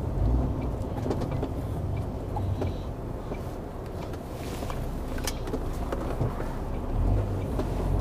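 Inside a lorry cab: the HGV's diesel engine running at low revs as it drives slowly, a steady low rumble that grows louder near the end, with a few faint clicks in the cab.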